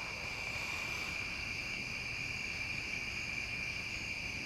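Crickets chirping: a steady, high-pitched trill that runs on unchanged.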